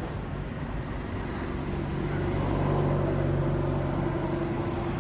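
A motor vehicle's engine running with a steady low hum, growing louder through the middle and easing off slightly near the end.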